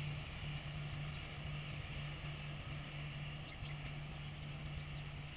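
Diesel-hauled passenger train receding down the line: a low steady drone and rumble that slowly fades. A couple of short high chirps come through about three and a half seconds in.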